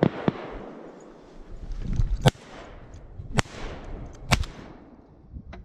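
Three 12-gauge shotgun shots, about a second apart, each a sharp crack with a short echo.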